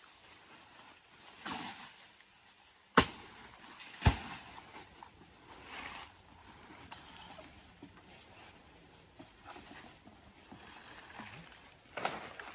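Two sharp knocks about a second apart, among softer scattered rustling.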